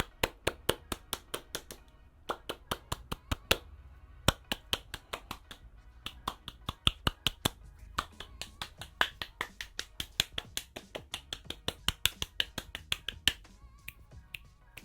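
Hand claps in quick runs of about three to four a second, made around the listener's head (right, left, front, back) and recorded on in-ear binaural microphones, so each clap comes from a different direction. The claps stop about 13 seconds in.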